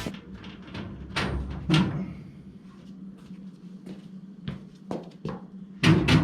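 Scattered knocks and clunks from hands-on work on a car body, the loudest pair about a second in and a cluster near the end, over a steady low hum.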